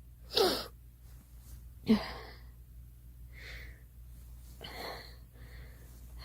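A girl sneezing twice, about a second and a half apart. Each sneeze is sudden and loud, with her voice dropping in pitch. Quieter breathy inhales follow.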